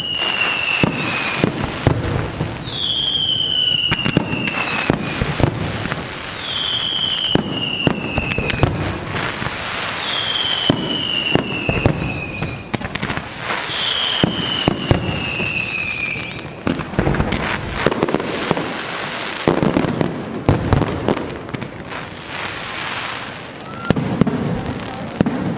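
Fireworks display: a rapid run of bangs and crackles, with five whistles that each fall in pitch over a second or so during the first two-thirds. The bangs come thickest in the later part.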